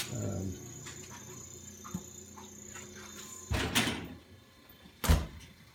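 Heavy refrigerator door being swung shut: a rustling thump about three and a half seconds in, then a sharp, heavy knock just after five seconds as it closes. A faint steady hum runs underneath.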